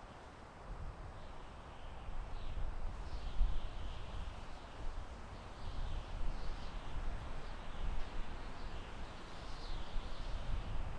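Soft wind blowing through a forest, with low gusts that swell about two seconds in, while a small bird chirps repeatedly in short, quick falling notes.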